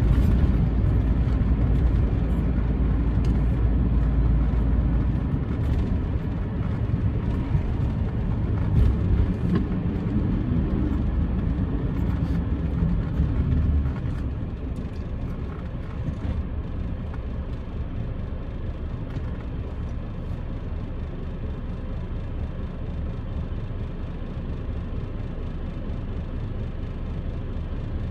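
A vehicle driving along a road, heard from on board: a steady engine and road rumble that drops a little over halfway through as it slows and stops at red traffic lights, leaving a quieter steady hum while it waits.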